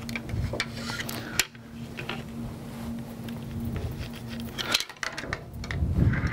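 Handling noise: a plastic layout ruler and marker rubbing and tapping against a bowling ball as a line is drawn on it, with small scattered clicks and one sharper knock about a second and a half in. A faint steady hum lies under it and stops about three-quarters of the way through.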